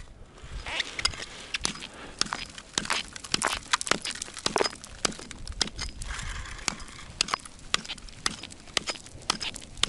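A small hatchet chopping through the thin ice that has frozen over an ice-fishing hole: sharp, irregular strikes, two or three a second, with ice chips clattering and splashing.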